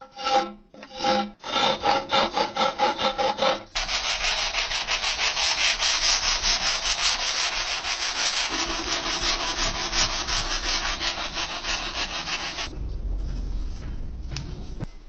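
Steel saw-blade stock being worked by hand with an abrasive: first separate strokes, about three or four a second, with the steel ringing, then fast, continuous back-and-forth rubbing strokes. Near the end the rubbing drops to a much fainter level.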